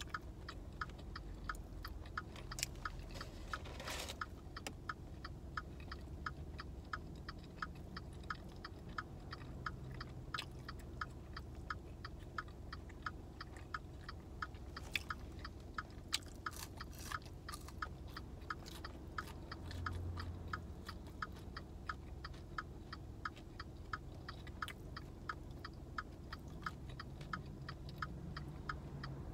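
A person chewing and biting crinkle-cut French fries with the mouth close to the microphone, over a fast, even ticking that runs throughout.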